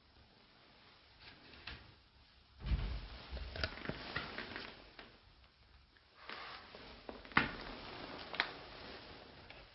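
Rustling and light clattering of objects being handled inside a wooden cabinet, with a dull knock about two and a half seconds in and a few sharp clicks after it.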